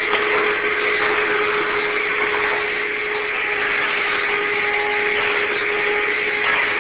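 Vacuum cleaner running steadily: an even rush of air over a constant motor whine.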